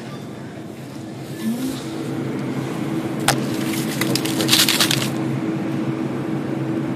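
A glass-door grocery freezer case is opened, and a steady hum comes up. Then comes a sharp click, and a plastic bag of frozen lumpia crinkles as it is handled on the shelf.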